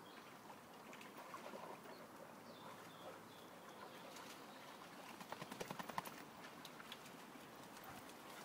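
A dog's paws splashing and stepping through a shallow, muddy stream, faint at first, with a quick run of splashes about five seconds in. Faint bird calls sound early on.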